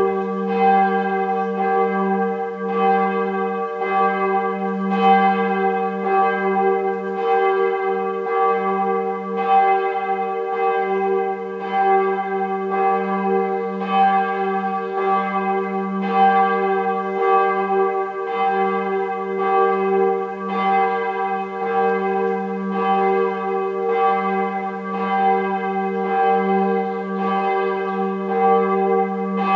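Bell III of the Wiesenkirche in Soest, a church bell cast in 2002, ringing on its own with a regular stroke about every second and a bit, its tone sounding on between strokes. It is rung half an hour before a church service.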